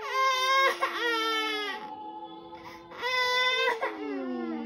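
A baby crying in two loud wails, the first about a second and a half long and the second shorter, over a soft lullaby melody. The crying is the baby's reaction to the lullaby.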